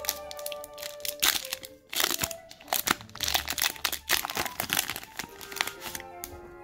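Foil wrapper of a Pokémon booster pack crinkling in the hands, many quick irregular crackles, over faint background music.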